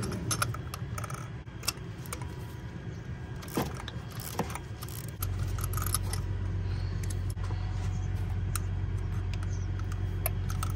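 Metal tool clicks and clinks: a 3/8-inch ratchet, extension and 14 mm spark plug socket being fitted and turned to work a spark plug out of a 1.8-litre four-cylinder's plug well. About halfway through a steady low hum comes in under the clicks.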